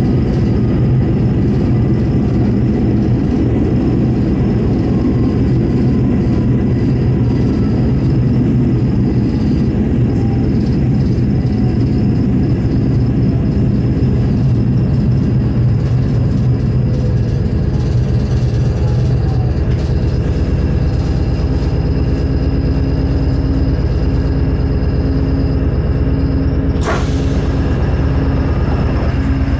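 Steady low drone inside an old diesel railcar under way: the engine running and the wheels rolling on the track. A steady low tone joins in about two-thirds through, and there is a short sharp noise near the end.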